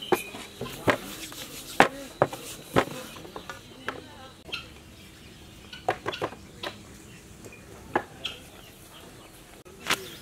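Irregular wooden knocks and clacks of rolling pins on rolling boards and flatbreads set down on a steel plate as dough is rolled out by hand, about a dozen sharp knocks spread unevenly.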